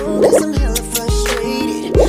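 Background music with a steady deep beat, hip hop or R&B in style.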